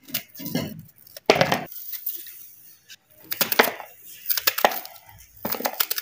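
A kitchen knife slicing through a raw peeled onion held in the hand: a handful of crisp, crunching cuts at irregular intervals about a second apart.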